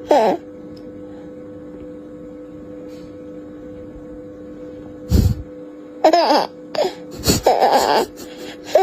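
A baby's voice in short bursts of laughter-like sounds, starting about five seconds in after a brief sound at the very start, over a steady hum.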